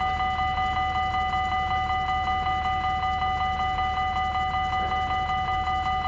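Dutch level crossing bells ringing, a rapid steady ding-ding of about five strikes a second, sounding as the crossing warns of an approaching train.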